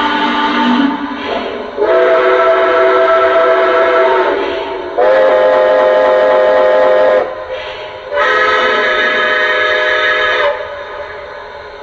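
Steam whistle from a Lionel Legacy Railsounds system in a Santa Fe 4-8-4 O scale model, played through the model's speaker: a blast ending about a second in, then three long blasts, each a differently pitched chord.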